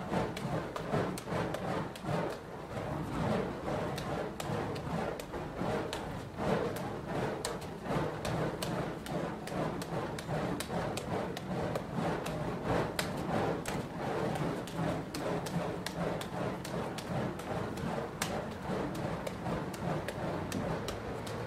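Fire-juggling torches smacking into the juggler's hands as they are caught, a steady run of sharp knocks several times a second, over a continuous rushing noise.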